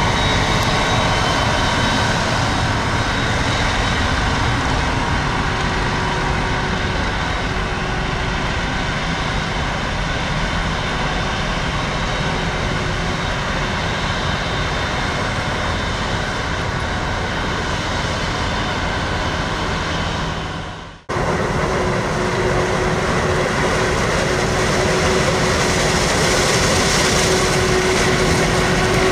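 Heavy harvest machinery running steadily under load: a forage harvester chopping maize, with tractor engines working alongside. The sound cuts out for a moment about two-thirds of the way through, then carries on with a steady hum.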